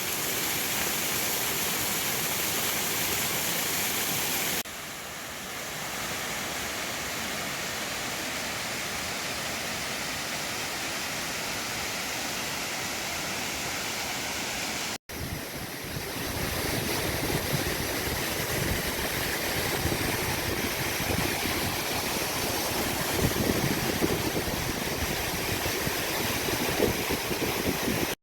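Steady rush of falling water from a waterfall, in three cut-together stretches: the level drops suddenly about four and a half seconds in, and there is a brief break about halfway through.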